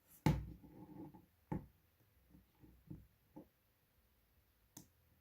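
Small clicks and taps from handling the parts of an opened mobile phone during a charging-port repair: a sharper knock just after the start with a brief rustle, a click about a second later, a few soft taps, and one more click near the end.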